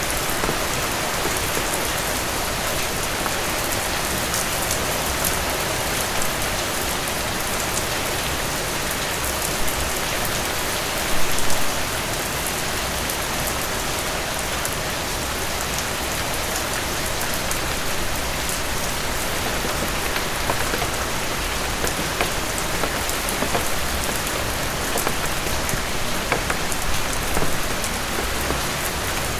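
Heavy rain falling steadily, a dense even hiss of drops striking surfaces with fine patter throughout. A few louder splashes come about eleven seconds in.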